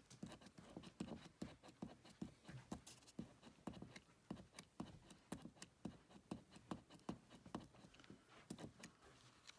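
Faint, quick taps of a Scorch Marker's bullet tip being pressed down again and again on paper, about three a second, to prime the pen's valve before the burning fluid comes through.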